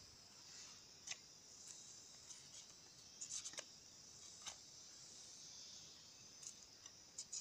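Near silence: a faint steady high hiss with a few light clicks scattered through it.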